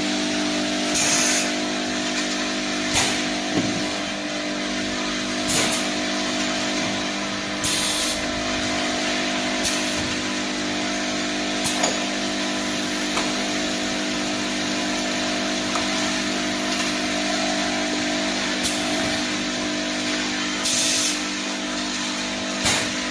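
Automatic bottle filling and capping line running: a steady machine hum with sharp clicks every second or two and a few short hisses of air.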